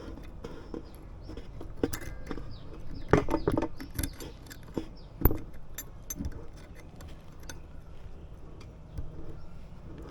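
Metal tools and parts clinking and knocking, with irregular sharp clicks, a cluster of louder knocks about three seconds in and a single sharp knock a little after five seconds.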